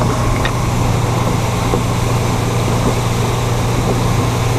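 Mercury Pro XS 175 four-stroke outboard motor running steadily under way. A constant low hum sits over an even rush of wind and water.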